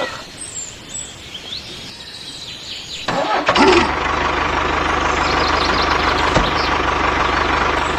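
Birds chirping, then about three seconds in a tractor engine starts and keeps running steadily with a fast, even chugging.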